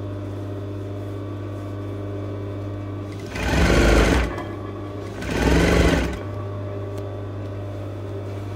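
Industrial flatbed sewing machine stitching a lining hem in two short runs, about three and five seconds in, each about a second long. A steady hum runs underneath throughout.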